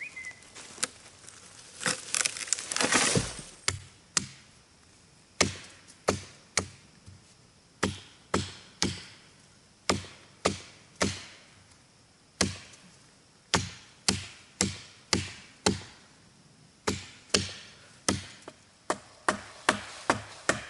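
Hand chopping with a small blade into green sapling wood, cutting poles: sharp single chops in runs of three to five, quickening to about two a second near the end. About two seconds in there is a rustle of brush and leaves.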